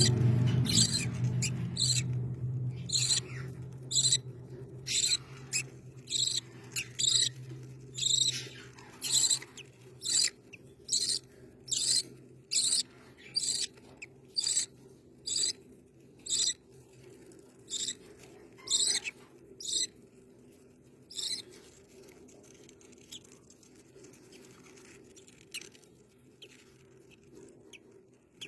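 Rainbow lorikeet chick giving short, high squeaky calls, about one a second, which stop about three quarters of the way through.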